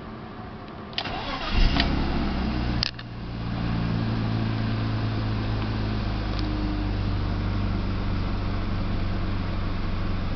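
BMW E36 323i's M52 straight-six being started: the starter cranks about a second in, the engine catches and runs up, dips sharply near three seconds, then settles into a steady idle. This is the engine whose rough, shaking idle when cold was traced to a faulty MAF sensor.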